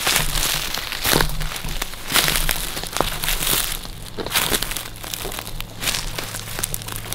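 Footsteps crunching through dry leaf litter and brushing through twigs and undergrowth, in an irregular walking rhythm.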